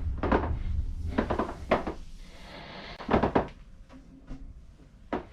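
Knocks and clunks of the 2019 Mac Pro's metal housing being handled as the case is opened, with a brief sliding sound partway through.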